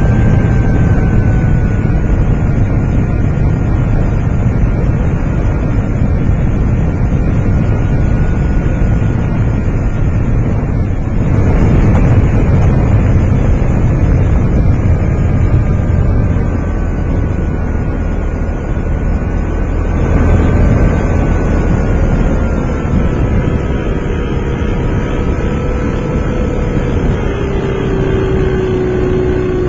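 Wind buffeting the microphone of a camera mounted on a flying model airplane, with the plane's motor whining underneath at a pitch that wavers. Near the end the motor's pitch drops and holds lower.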